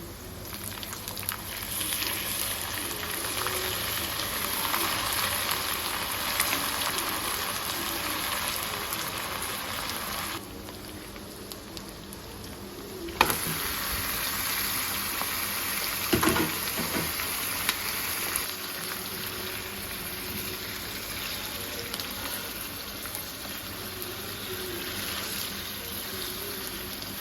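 Chicken frying in hot oil in a pan, a steady sizzle. It drops away abruptly about ten seconds in and comes back a few seconds later with a sharp click, with a few knocks a little after.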